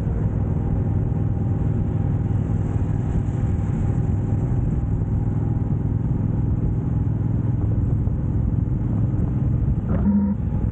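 Motorcycle engine running steadily while riding, a continuous low rumble mixed with rushing noise.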